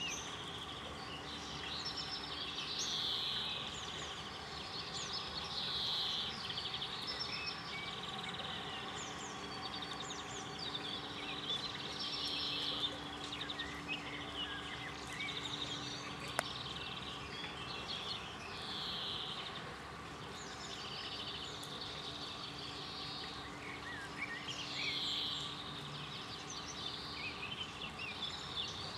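Songbirds singing in repeated short twittering phrases over a steady faint background hum, with one sharp click about halfway through.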